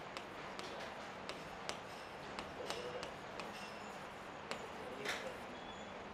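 Chalk writing on a chalkboard: quick taps and scratches as letters are formed, with a few brief high squeaks and one louder scrape about five seconds in.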